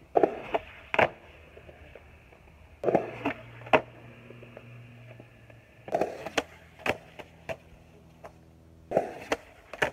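Skateboard on concrete: four bursts of sharp clacks and knocks from the board popping and landing, with the low rumble of the wheels rolling between them.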